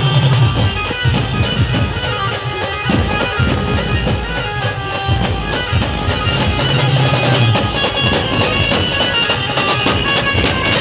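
Loud live band music from a procession band. A hand-beaten drum strikes repeatedly under held melody notes, with deep sustained bass notes swelling about six to seven seconds in.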